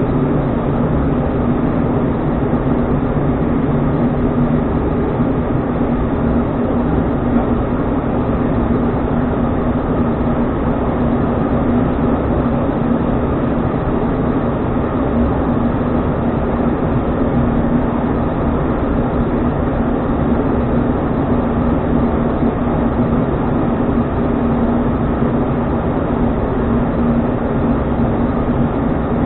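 Steady drone of an ATR turboprop airliner's engines and propellers, with airflow noise, heard inside the cockpit during the descent on approach. A low hum holds level with no breaks.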